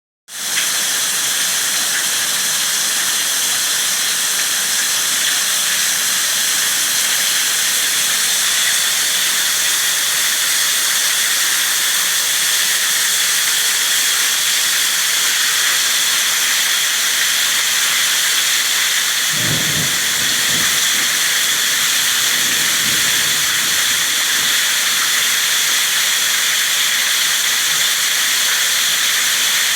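Torrential thundery rain pouring down in a steady, dense hiss. A brief low rumble rises under it about twenty seconds in.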